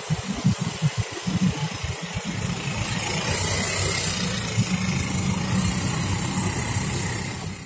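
Motorcycles, cars and a truck driving past with their engines running; an uneven, choppy rumble at first gives way to a steadier engine sound from about two and a half seconds in.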